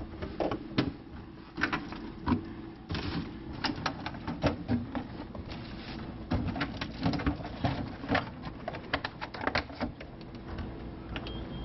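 A metal spoon clinking and tapping against a stainless steel ring mould and plate as diced fruit is packed down into the mould, many small irregular clinks, with a faint steady low hum behind.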